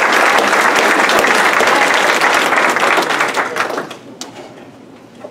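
Audience applauding, many people clapping at once; the clapping dies away about four seconds in.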